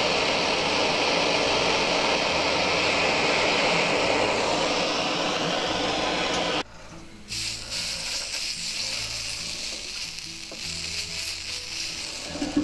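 Handheld blowtorch flame running with a steady hiss on a cable lug being tinned with solder, cutting off abruptly about six and a half seconds in. After that the hot lug and its flux crackle and sizzle faintly as they cool, with a short knock at the very end.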